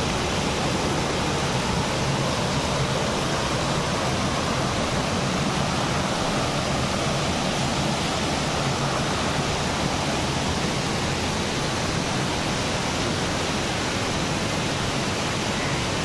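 Stream water rushing steadily as it spills over a low stone weir.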